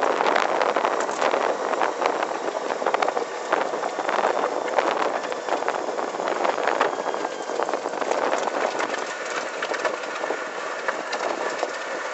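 Electric go-kart in motion on pavement: tyre and road noise with a constant patter of chassis and body rattles. No engine note is heard, since the electric motor and belt drive run almost silently.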